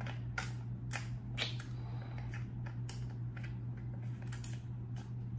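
Light, irregular plastic clicks and taps as a battery is pushed into the compartment of a compact digital vlogging camera, over a steady low hum.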